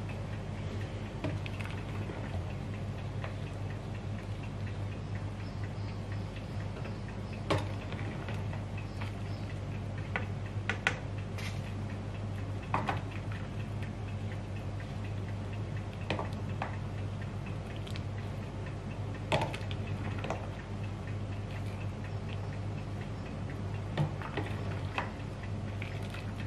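Black slotted ladle knocking and clicking now and then against a steel stock pot and a metal plate as boiled fish pieces, shallots and lemongrass are scooped out of the broth. A steady low hum runs underneath.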